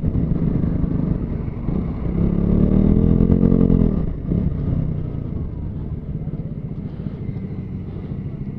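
Motorcycle engine running under the rider, its pitch rising and then falling about two to four seconds in, where it is loudest, then settling into a steadier, lower drone.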